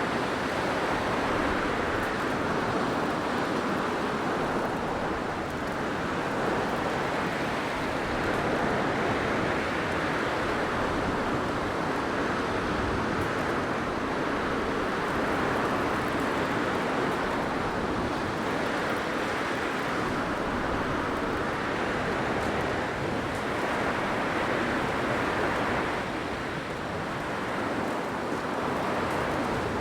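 Blizzard wind blowing steadily, a dense rushing noise that swells and eases every few seconds.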